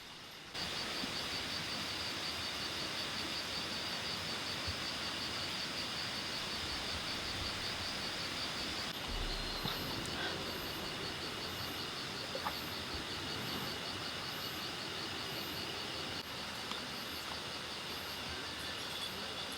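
Steady outdoor ambience of insects trilling, a high pulsing chorus over a constant hiss. From about halfway, a faint high chirp repeats roughly once a second.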